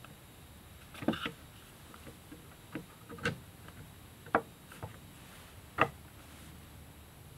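About half a dozen light, scattered metal clicks and knocks as a motor with its shaft coupler is fed onto a CNC machine's Y-axis rail by hand.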